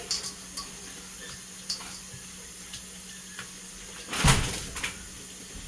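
Water briefly splashing from a kitchen tap about four seconds in, among small clicks and taps of kitchenware, over a steady low hum.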